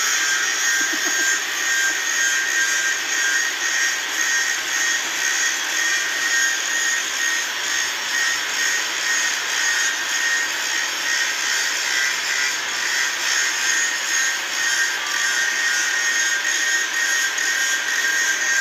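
Handheld angle grinder running steadily under load, its disc grinding a 37.5° bevel on the end of a steel pipe. A steady high whine over a grinding hiss.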